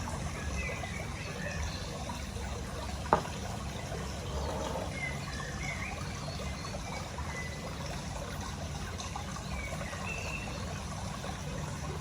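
Steady trickling noise like running water, with faint high chirps and one sharp click about three seconds in.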